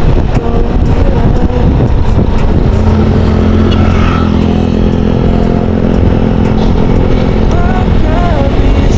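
Road vehicle engine running loud and close, with a steady low drone strongest in the middle. Near the end, a higher tone starts that steps up and down in pitch.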